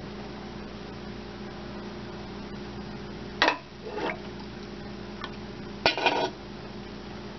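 A glass cup clinking against the side of a stainless steel pot of cider, a few sharp clinks starting about halfway through, over a steady low hum.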